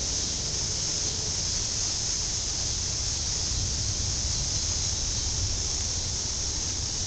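Storm wind and rain before a thunderstorm: a steady high hiss with an uneven low rumble of wind on the microphone.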